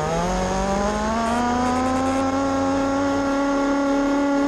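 Single-cylinder 30cc two-stroke engine of a Rovan 1/5-scale gas Baja RC buggy at full throttle, its pitch rising for the first second and a half as it climbs from about 8,800 to 16,800 rpm, then holding steady at top speed. Its carburettor is set a quarter turn richer than factory on the high-speed needle.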